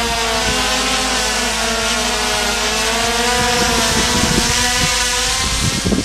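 Quadcopter drone's propellers whining steadily, the pitch drifting slowly up and down as the motors adjust. Low wind buffets hit the microphone in the last couple of seconds.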